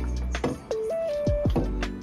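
Background music: a simple electronic melody of held notes stepping up and down over deep kick drums that drop quickly in pitch and a sustained bass.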